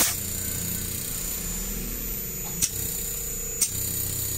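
Air-conditioner fan motor running on the bench with a steady low hum. Three sharp clicks cut in: one at the start, then two more about a second apart near the end.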